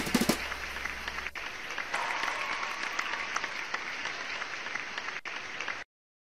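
Applause: many hands clapping in a dense crackle, over the tail of background music that stops about a second in. The clapping cuts off suddenly near the end.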